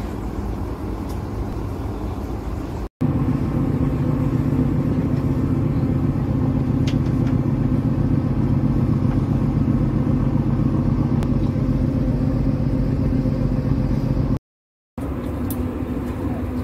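Ferry engine running with a steady low drone. It is loudest through the long middle stretch and drops out briefly twice.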